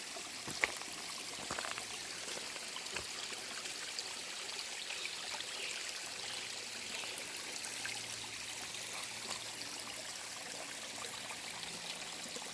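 Small woodland stream trickling steadily over rocks, with one sharp click about half a second in.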